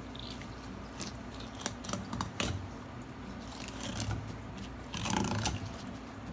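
Knife cutting along a red sea bream's back on a wooden board, the blade giving scattered crisp clicks and crunches as it goes through scales and fin bones. A louder cluster of knocks and handling noise about five seconds in as the fish is turned over.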